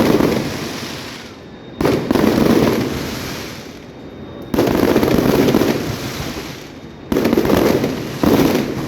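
Fireworks display: aerial shells bursting four times, each a sudden loud bang that fades away over a second or two, the bursts coming a few seconds apart.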